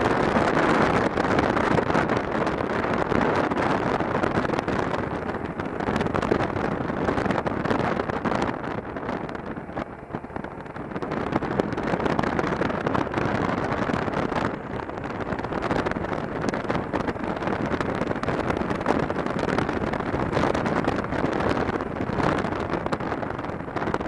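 Motorcycle being ridden: its engine running under a steady rush of wind noise on the camera microphone. The noise dips briefly about ten seconds in.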